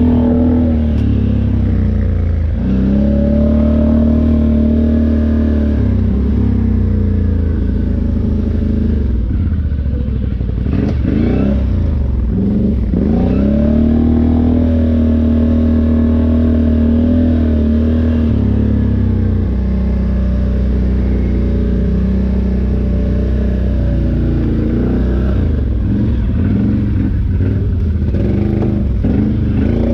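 ATV engine running hard under riding, its revs dropping and climbing again several times as the throttle is let off and opened.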